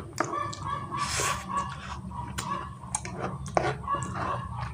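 Close-up eating sounds of fried instant noodles: wet chewing and lip-smacking, with a fork repeatedly clicking and scraping on a tray as the last noodles are gathered.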